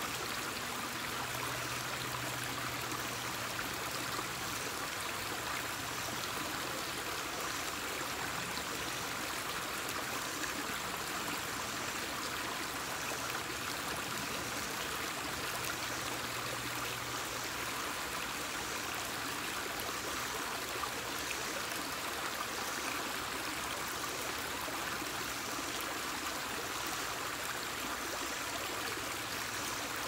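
Small, shallow rocky stream flowing and splashing over stones, a steady water sound with no let-up.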